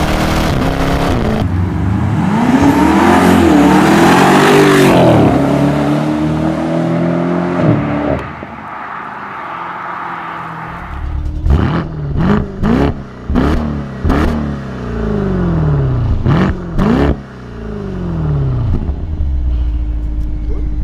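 Alpina B5 BiTurbo V8 through a mariani sport exhaust: accelerating hard with the pitch climbing and dropping at gear changes, then about six short revs with sharp cracks from the tailpipes, settling to a steady low idle near the end.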